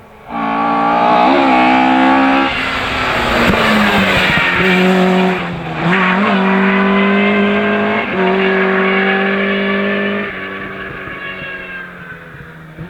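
Rally-prepared Ford Escort engine at high revs under full throttle, cutting in suddenly, with brief lifts between bursts of power, then fading as the car goes away.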